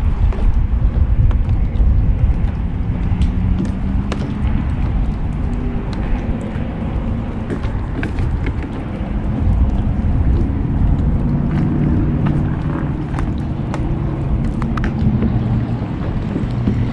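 Wind buffeting the microphone with a steady low rumble, with scattered light ticks throughout.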